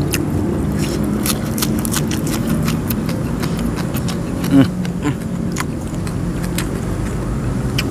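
Close-up eating sounds: chewing with many sharp, crisp clicks from the mouth and food, over a steady low hum. There is one louder short sound a little past halfway.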